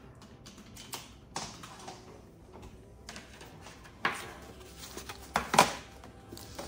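Unpacking handling noises: rustling of plastic and paper, with a few short knocks as a box and packs of sheets are moved and set down on a wooden table. The loudest knock-and-rustle comes about five and a half seconds in.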